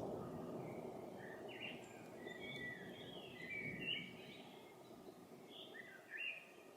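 A songbird chirping in short bursts of quick notes, twice, over a low rumble of thunder that dies away.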